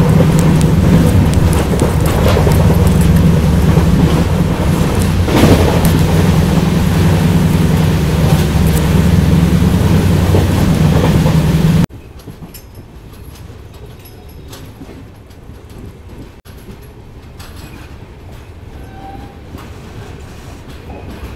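Jan Shatabdi Express passenger train running at speed, heard at an open coach door: a loud rush of wind and wheel-on-rail noise over a steady low rumble. About twelve seconds in it cuts abruptly to a much quieter sound of the train rolling slowly along a platform, with faint clicks.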